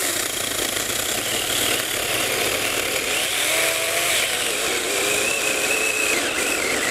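Cordless mini chainsaw with a brushed (carbon-brush) motor cutting through a thick branch. Its motor whine wavers and sags in pitch as it bogs down under the load, the stalling that is frequent with cheap carbon-brush mini chainsaws.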